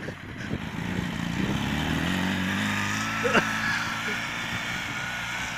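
Engine of a homemade go-kart-based buggy revving up, its pitch rising and then holding a steady drone as the buggy drives through snow. A brief sharp sound comes a little past halfway.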